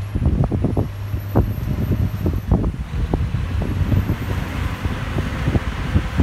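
Heavy snow-removal machinery such as an HTR306 rotary snowplow, its diesel engine running steadily under many irregular low thumps. A hiss of wind grows near the end.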